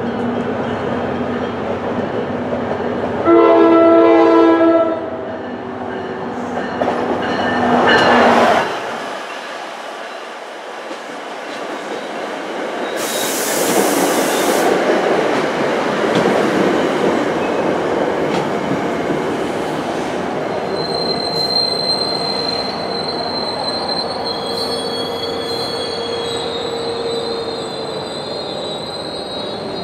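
NJ Transit commuter train led by a PL42AC diesel locomotive sounds its horn for about two seconds, then the locomotive passes close by and the coaches roll past. From about two-thirds of the way in, high-pitched wheel and brake squeal goes on as the train slows to a stop at the platform.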